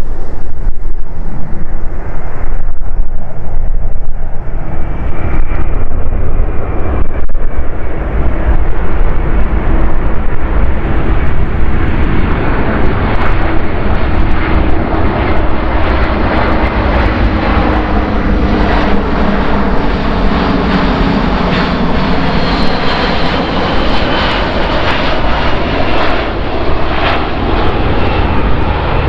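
Jet engines of a Boeing C-17A Globemaster III, a four-engine turbofan military transport, running loud and steady as the aircraft passes by. Around the middle, the tone sweeps down and back up as it goes past.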